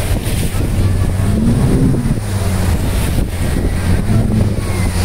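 Motorboat engine running as the boat moves through breaking surf, with water splashing against the hull and wind buffeting the microphone.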